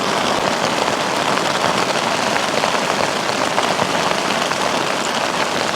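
Heavy rain pouring steadily, a dense even patter of drops.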